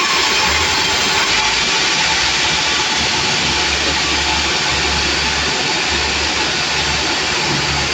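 Sawmill machinery running with a loud, steady, noisy drone.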